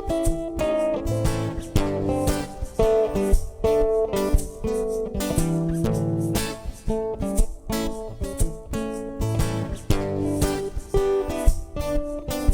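A guitar playing an instrumental passage with strummed chords and picked notes, and no singing.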